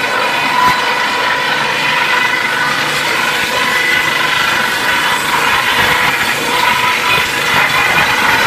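Wood crusher running at speed: a loud, steady mechanical din with a constant high whine.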